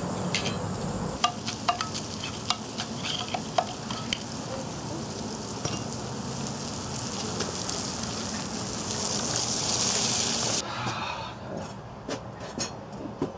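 Hot metal sizzling and crackling right after a bronze pour: a steady hiss that swells and then stops abruptly about ten seconds in, with scattered sharp pops throughout and a few fainter crackles afterwards.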